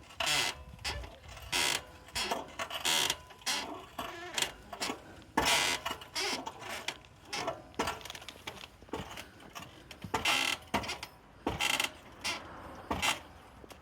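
Royal Enfield Himalayan 411 swing arm squeaking and creaking in short, irregular bursts, about one or two a second: the abnormal noise from the swing arm that needs fixing.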